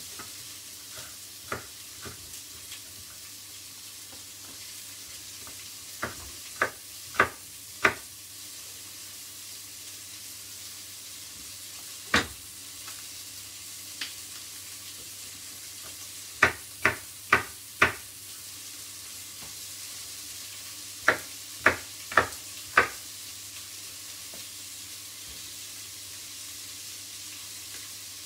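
Onion and red pepper frying in coconut oil in a pot, a steady sizzle. Over it, sharp knocks of a chef's knife chopping red pepper on a wooden cutting board, in three quick runs of four with a couple of single knocks between.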